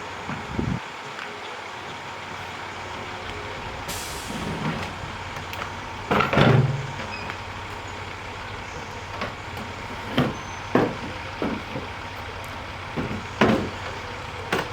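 Heavy items being handled in and around the cargo box of a box truck: a series of separate knocks and clunks, the loudest about six seconds in and a pair near the end, over a steady background hum.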